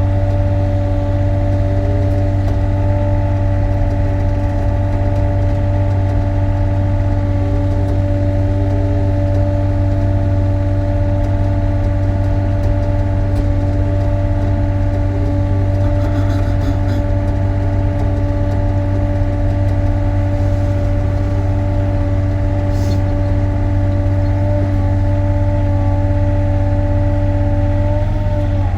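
Sany SY35U mini excavator's diesel engine running steadily at a constant speed while warming up.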